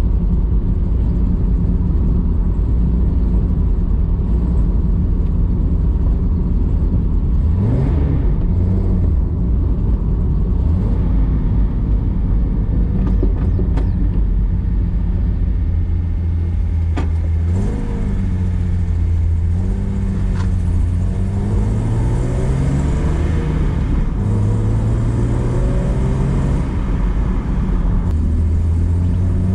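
A 1973 Datsun 240Z's 2.4-litre straight-six engine running on the road, heard from inside the cabin. Its pitch climbs as the car accelerates and falls back several times.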